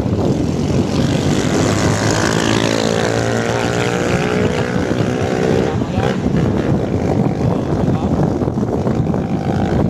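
Road and wind rumble from a moving motorcycle, with engine noise. From about half a second to six seconds in, a pitched engine hum stands out and bends up and down in pitch, then fades.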